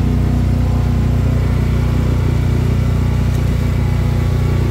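Motorboat engine running steadily under way, a constant low drone heard from aboard the boat.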